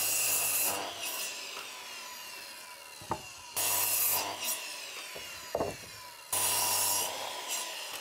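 Electric power saw cutting timber in three short runs, the blade winding down with falling pitch after each one, with a couple of sharp wooden knocks in between.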